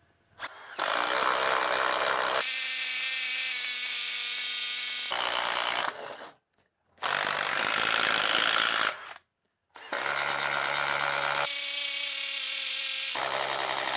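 Cordless impact drivers, a Bosch Freak and a DeWalt DCF850, hammering under load as they bore 1 1/4 inch holes through a wooden post with a spade bit. The sound comes in several separate runs that start and stop abruptly, with brief silent gaps between them.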